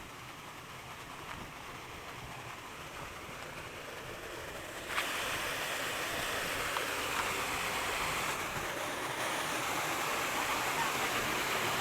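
Water rushing over rocks in a small waterfall cascade, a steady hiss that grows louder, with a jump about five seconds in.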